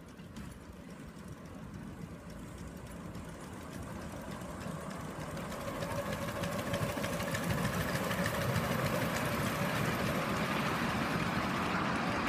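Miniature live-steam locomotive pulling a loaded passenger train on a small-gauge track, its running noise and the rolling of the cars growing steadily louder as it approaches over the first eight seconds or so, then holding loud as the carriages pass close by.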